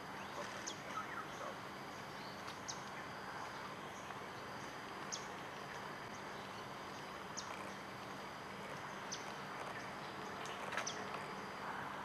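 Tropical garden ambience: insects hum steadily, with a short, high, falling chirp repeated about every two seconds.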